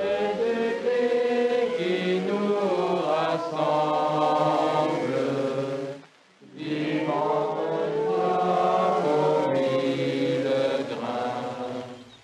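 A group of men chanting a religious song together in long held notes, in two phrases with a short breath-pause about six seconds in.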